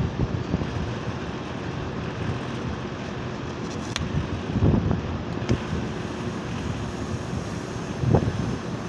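Outdoor unit of a 4.5-ton split-type air conditioner running: a steady whooshing, mechanical rumble with a couple of short low swells and two faint clicks. The owner puts its creaking down to a failing bearing in the replacement compressor.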